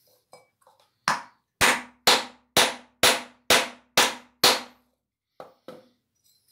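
Hammer striking a warped gas stove burner cap resting on wooden blocks: eight sharp blows about two a second, each with a faint metallic ring, and a few lighter taps before and after. The light blows flatten the burner where overheating had bent it upward, which had narrowed the gap the gas escapes through.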